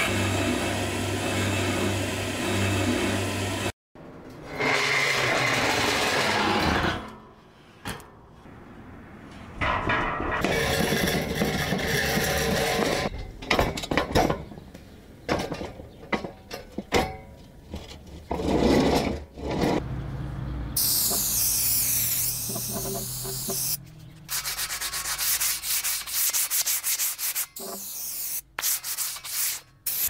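An electric motor hums steadily for about four seconds. After a cut comes a string of short rubbing, sanding and scraping noises, broken by clicks and sudden stops.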